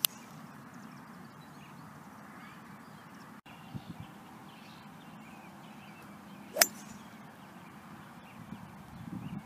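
Hybrid golf club striking a ball off the turf: one sharp crack about two-thirds of the way through.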